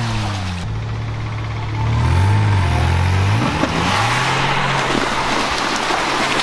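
Pickup truck engines running under load while a stuck Chevy pickup is towed out of a flooded mud hole with a strap. The revs dip and climb again about two seconds in, and the engines get louder from there.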